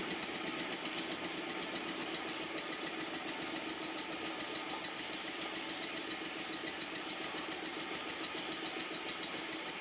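Mamod TE1 toy steam tractor's small oscillating-cylinder steam engine running fast and even, a rapid steady beat of exhaust chuffs. Its cylinder and port face have just been lapped together, and it runs much improved.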